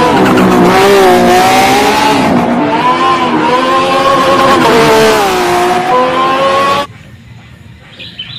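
Race car engine sound effect: an engine revving, its pitch rising and falling several times over a hissy roar, cutting off abruptly about seven seconds in.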